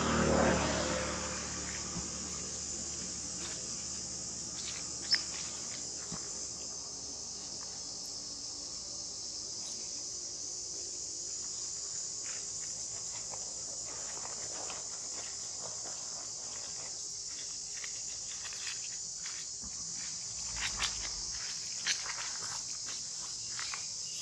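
Steady, high-pitched insect chorus, with a few short rustles and clicks scattered through it.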